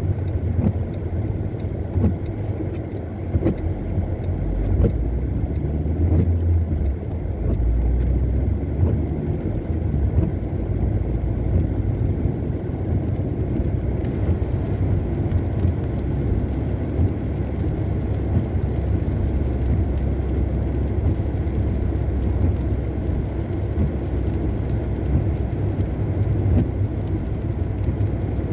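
Car driving in the rain: steady low rumble of engine and tyres on a wet road.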